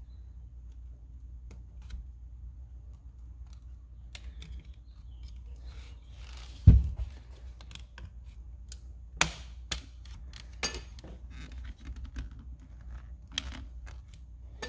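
Plastic trim clips of a steering wheel's control-button cover clicking and snapping as the cover is pried loose by hand. A single heavy thump comes about seven seconds in.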